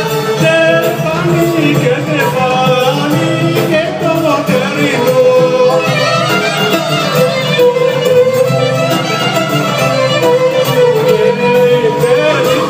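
Greek Thracian folk dance music: a melody line over a steady, even beat, with no break.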